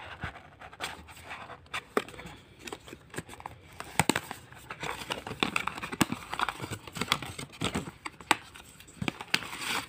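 Cardboard box and its packaging being handled and unpacked: flaps opened and contents rummaged, with crinkling and scattered sharp clicks, the loudest about four and six seconds in.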